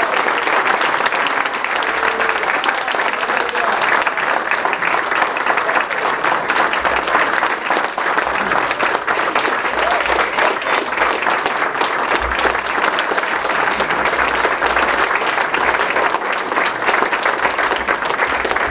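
A roomful of people applauding steadily.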